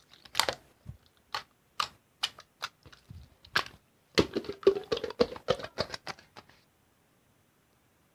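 Slime being played with by hand, making irregular sharp clicks and crackles that stop about six and a half seconds in.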